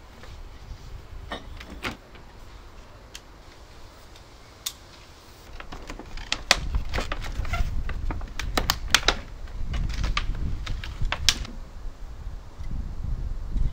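Irregular plastic clicks and rattles, thickest from about six to eleven seconds in, as the parts of a handheld pool vacuum, its head and telescopic pole, are handled and snapped together.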